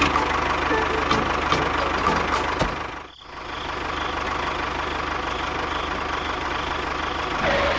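Tractor engine running steadily with a fast, even low chugging pulse, briefly cutting out about three seconds in and then resuming.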